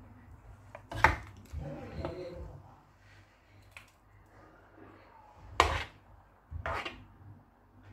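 Metal ladle knocking and scraping against a metal cooking pot while stirring: three sharp knocks, one about a second in and two close together near the end, with softer clatter in between.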